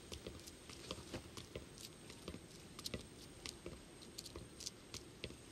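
Quiet room with faint, irregular soft taps and clicks, over a faint steady high-pitched whine.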